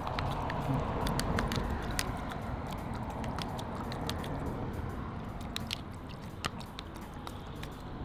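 Herring gull pecking soggy tuna from a hand-held plastic tub, its bill striking the plastic and the ledge in irregular sharp clicks and snaps over a steady background rush.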